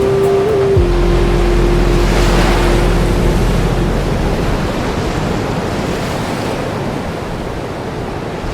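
Ocean surf washing steadily in a continuous hiss. A single long held note of soft background music sounds over it and fades out about three and a half seconds in.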